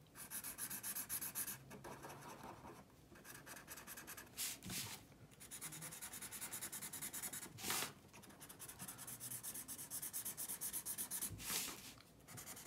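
Felt-tip marker coloring on paper in quick back-and-forth strokes, a soft, rapid, scratchy rhythm. A few louder scuffs break in as the paper is shifted on the desk.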